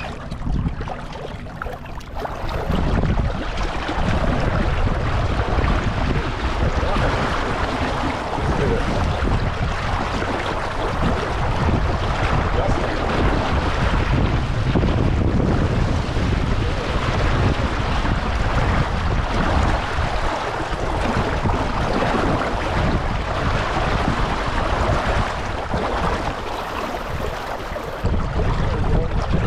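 Wind buffeting the microphone over water washing against a small sailboat's hull. It is a steady rushing noise that grows louder a couple of seconds in.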